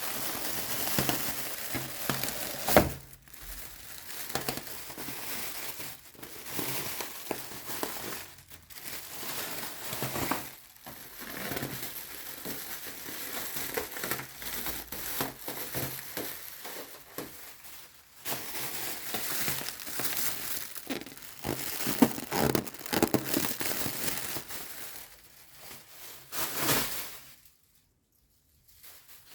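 Keyboard box packaging being handled and opened, crinkling and rustling in irregular bursts with short pauses. It goes nearly quiet near the end.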